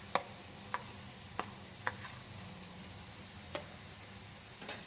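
Sizzling in a frying pan, a steady hiss, while a spatula stirs boiled mashed potato into fried vegetables. The spatula clicks sharply against the pan about six times at uneven intervals.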